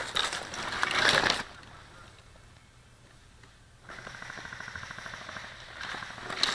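Airsoft guns firing full-auto, a fast even run of ticks that starts about four seconds in. Before it comes a loud stretch of noise close to the microphone lasting about a second and a half.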